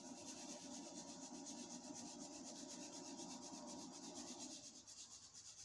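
Faint, steady rasping rustle of panko breadcrumbs being sprinkled from their container, stopping about four and a half seconds in.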